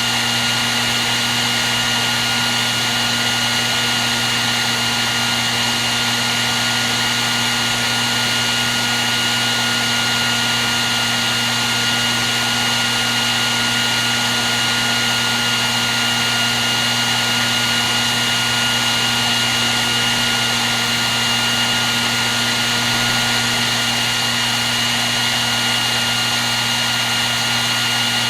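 Hair dryer blowing steadily: an even rush of air with a constant high whine and a low hum from its motor and fan.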